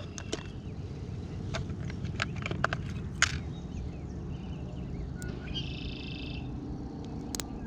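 A short, high, buzzy trilling call of about a second from a small animal, about five seconds in, over a steady low outdoor rumble. Several sharp clicks come in the first half.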